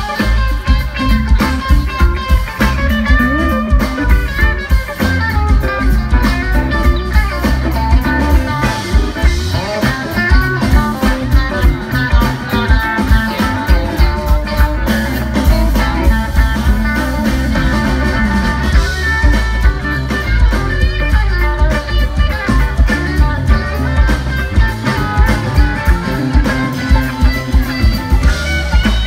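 A live funk jam band playing: electric guitar lines over bass and a drum kit keeping a steady beat.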